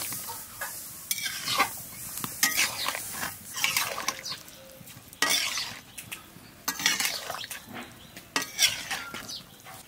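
A metal ladle stirring and scraping against an aluminium kadai, turning semolina laddoo balls in hot syrup that sizzles faintly beneath. The scrapes come irregularly, roughly one a second.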